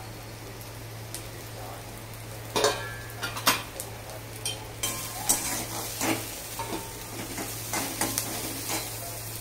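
Metal spatula stirring and scraping chopped chillies, peanuts and coconut as they fry in oil in a metal kadhai, over a steady sizzle. The scrapes and clinks start about two and a half seconds in and come irregularly until near the end.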